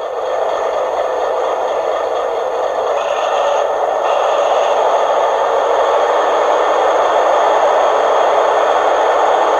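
Diesel generator running sound of a China Railway 25K air-conditioned generator car, played by a DCC sound decoder through the model's small loudspeaker: a steady, even running noise with faint steady whistling tones above it.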